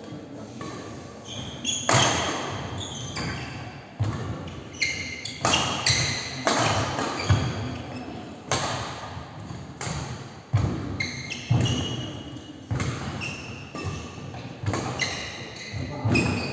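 Badminton rally on an indoor wooden court: sharp racket strikes on the shuttlecock every second or two, with players' footfalls and short high shoe squeaks on the floor, echoing in the hall.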